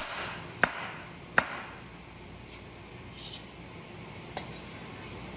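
Kitchen knife chopping a jalapeño on a cutting board: three sharp chops in the first second and a half, then one lighter tap about four seconds in.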